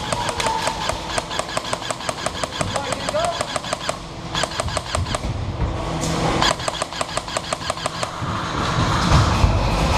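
Airsoft rifle firing on full auto in long rapid bursts, about ten shots a second, broken by short pauses.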